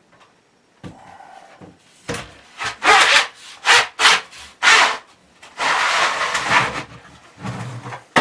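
Wood scraping on wood in a series of short strokes, roughly two a second, then one longer scrape and a shorter one near the end, as a 1x2 wooden strip is worked into a 2x3 channel.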